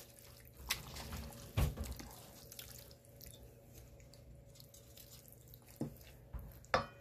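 A spoon stirring a thick, creamy casserole mixture in a stainless steel mixing bowl, with a few sharp clinks of the spoon against the metal bowl, the last one ringing briefly.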